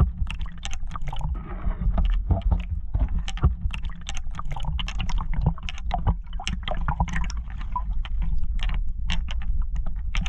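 Lake water sloshing and gurgling around a camera held half-submerged at the surface, with a constant low rumble and many small sharp splashes and clicks against the housing.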